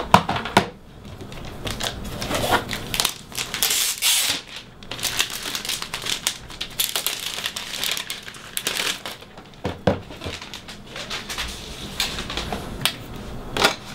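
Packaging being handled as the power supply is unpacked: crinkling and rustling of wrapping with many short clicks and light knocks.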